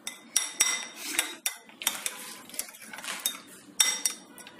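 A spoon stirring thick yogurt in a glass bowl, clinking against the glass over and over in an irregular rhythm with short ringing tones. The loudest clink comes about four seconds in.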